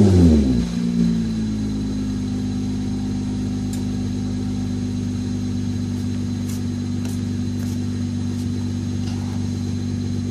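Acura TL V6 through an EndLessRPM aftermarket catback exhaust with quad tips, its revs falling back from a blip during the first second or so, then idling steadily.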